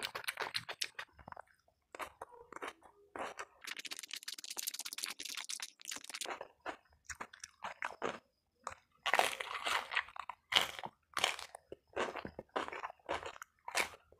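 Close-miked chewing and crunching of crisp fried fish and rice, with a run of loud crunches about two a second in the second half.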